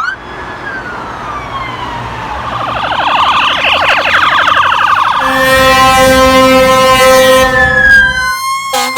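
Ambulance siren on an emergency run: a falling wail, then a fast warbling stretch around the middle. Five seconds in, a long steady horn blast sounds for about three seconds over the siren's wail. Near the end the siren switches to a rapid yelp.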